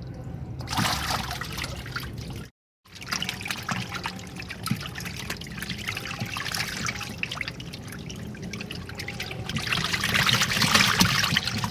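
Water trickling and splashing as a catfish container box is drained by hand with a hose, with a brief break about two and a half seconds in and louder splashing near the end.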